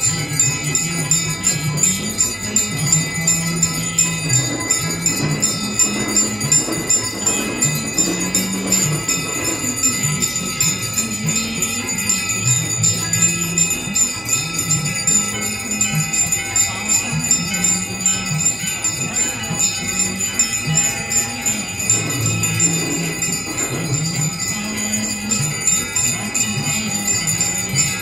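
Ganga aarti: bells ringing continuously over devotional aarti music with held melody notes and a steady beat.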